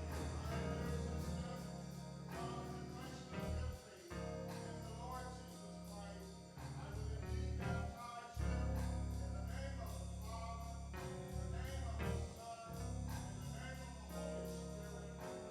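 Gospel music with singing over a bass and a steady beat, typical of a church choir backed by a band.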